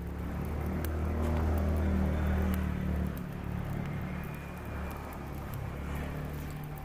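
A motor vehicle's engine running, a low hum that grows loudest about two seconds in, drops off abruptly around three seconds, then carries on more quietly.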